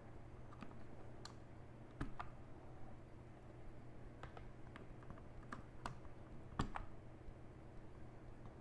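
Faint, scattered plastic clicks and taps of keycaps on a mechanical keyboard as the caps are pulled off and pressed back onto the switches, about eight clicks at irregular intervals.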